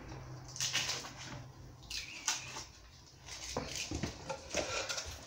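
Tape being peeled off a hardboard template and a wooden stair tread in several short crackly pulls, with light scratchy rustling as the template is handled.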